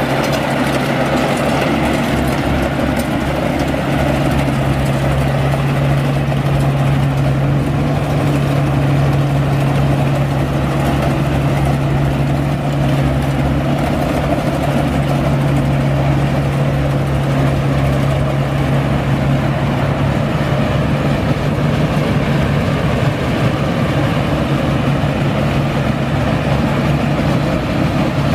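Yanmar AW70V combine harvester's diesel engine running steadily with a constant low hum while harvesting, its threshing machinery turning.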